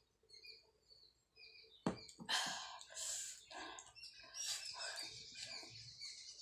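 Close-miked mouth sounds of someone who has just drunk cola: small wet clicks and swallowing, then a sharp knock about two seconds in as a drinking glass is set down on the wooden table, followed by a run of louder, irregular mouth and breathing noises.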